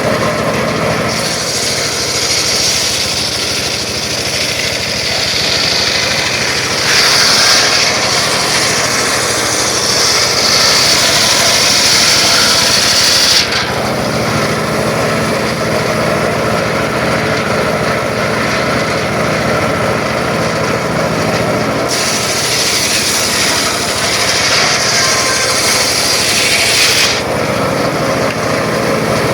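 Circular saw cutting through wood twice, a long cut lasting about twelve seconds and a shorter one of about five seconds near the end, with the saw's drive running steadily in between.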